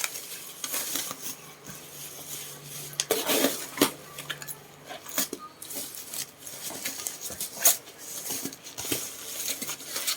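A parcel being unpacked by hand: irregular clicks, taps and crinkling of cardboard and plastic packaging.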